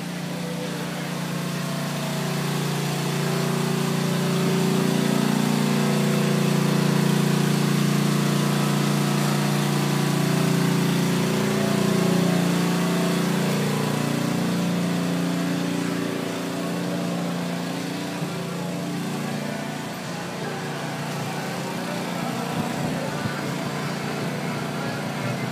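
Generator engine running continuously, a steady drone with a slightly wavering pitch. It grows louder over the first several seconds and eases off again in the second half.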